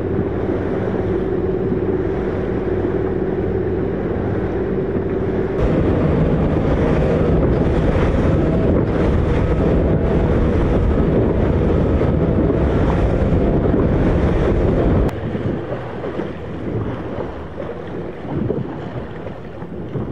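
Wind buffeting the microphone over water rushing past a moving boat, with a steady hum underneath for the first few seconds. It gets louder about six seconds in and drops off abruptly about fifteen seconds in.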